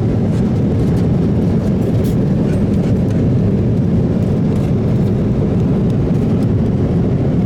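Steady low cabin noise inside a Boeing 777-300ER airliner in flight: the even rush of airflow and jet engines.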